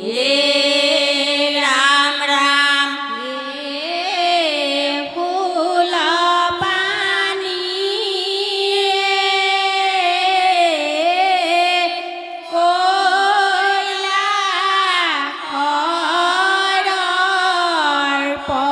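A group of women singing an Assamese devotional song together, with hands folded in prayer. They sing in long, drawn-out phrases that glide up and down in pitch, with no steady beat.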